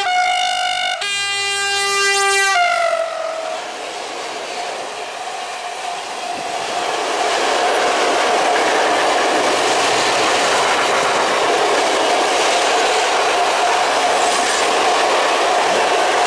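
ET26 electric locomotive sounding the Rp1 'attention' warning on its horn: a long blast whose tone changes about a second in and slides down in pitch as the locomotive passes. A long train of open coal wagons then rolls by with steady wheel and rail noise and a faint held hum, growing louder and staying level.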